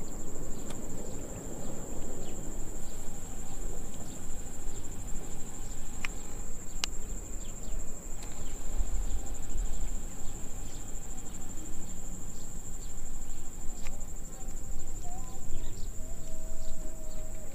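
Insects in the rice fields chirring steadily in one continuous high-pitched drone, over a fluctuating low rumble.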